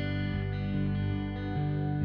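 Instrumental background music led by guitar, held chords changing every half second or so.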